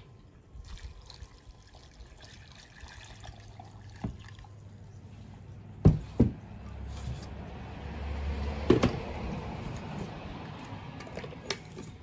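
Water pouring from a plastic pitcher into a blender jar, the splashing rising in the middle, with a few sharp knocks of containers being handled.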